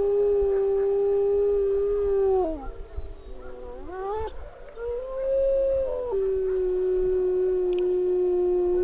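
A wolf howling: a long, steady howl that drops in pitch as it ends, then short rising and falling notes and a brief higher note, then another long, steady howl.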